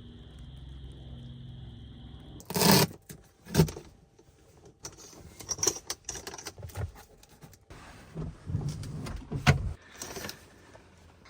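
Handling noises from fitting a front windshield shade and strapping it on with worn Velcro: irregular knocks, clicks, scrapes and rustling with a few loud thumps. Before that, for the first couple of seconds, a steady hum with a faint high tone.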